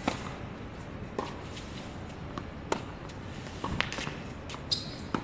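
Tennis ball struck by rackets during a doubles point: a serve, then several sharp hits about every one to one and a half seconds as the ball is returned, with players' footsteps on the hard court between them.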